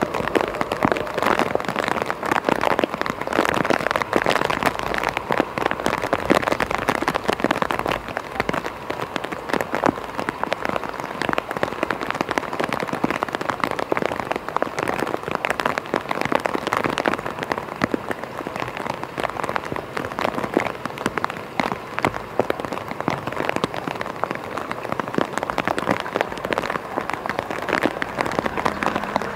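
Rain pattering on a surface close to the microphone: a dense, steady spatter of drops.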